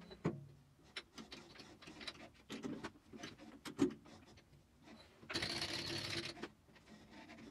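Faint metal lathe turning a steel bar: scattered clicks and ticks from the cut and the falling chips, with a steadier cutting hiss for about a second past the middle.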